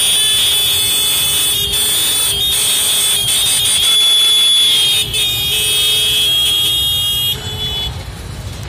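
Vehicle horns blaring continuously in a jammed street, several held tones at once over the noise of idling traffic and a crowd. The horns break off and the din eases a little near the end.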